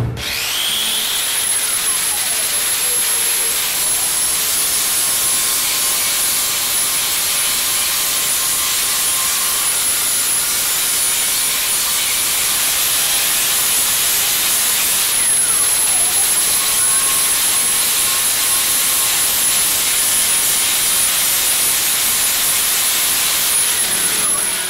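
High-speed grinder running continuously, its whine climbing as it spins up at the start and dropping as it winds down at the end, over a steady hiss.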